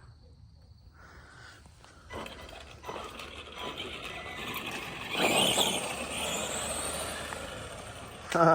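Arma Granite Boost RC monster truck driving, its brushed 550 electric motor and gears whining over the tyre noise. It starts about two seconds in and is loudest around the fifth second.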